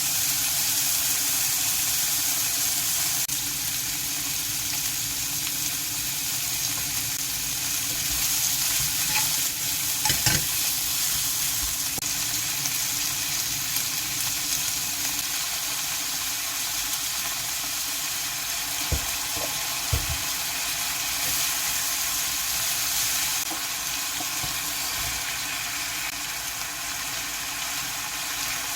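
Food sizzling steadily in a hot frying pan, with a few short knocks about ten seconds in and again near twenty seconds.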